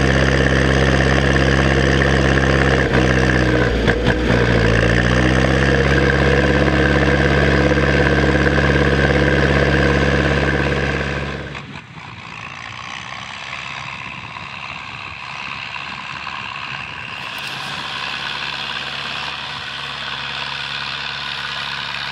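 Zetor 7245 tractor's four-cylinder diesel engine running steadily while pulling a field cultivator, heard close to its exhaust stack. Its pitch sags a few seconds in, then recovers. About halfway through it cuts to the same engine heard more quietly from farther off.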